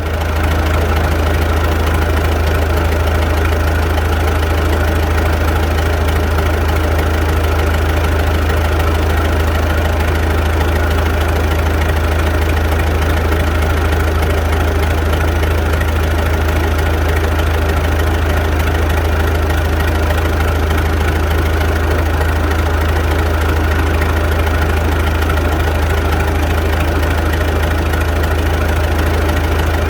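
Diesel tractor engine idling steadily close by, a loud, even low drone.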